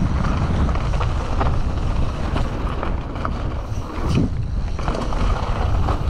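Wind buffeting an action camera's microphone during a fast mountain-bike descent, with tyre rumble on a dirt trail and scattered knocks and rattles from the Canyon Torque CF 9 full-suspension bike.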